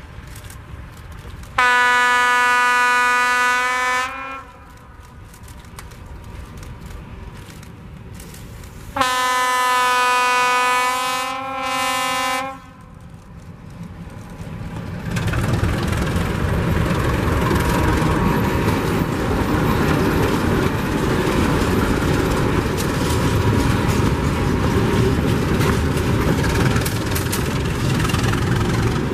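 Czech class 751 diesel locomotive sounding its horn twice, each blast a few seconds long. It then runs up and passes with its diesel engine running and the freight wagons rolling by on the rails.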